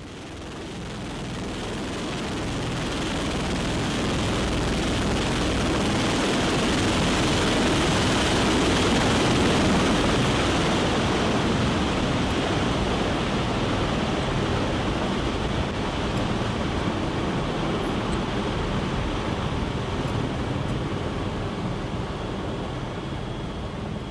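MV-22B Osprey tiltrotor's rotors and engines heard from inside the cabin with the rear ramp open: a loud, steady rushing roar with a low rumble underneath, mixed with wind through the open ramp. It fades in over the first few seconds and eases a little near the end as the aircraft climbs out after takeoff.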